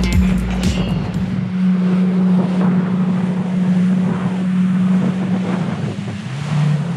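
Jet ski engine running steadily, with wind buffeting the microphone; the engine note drops about six seconds in as the throttle eases off.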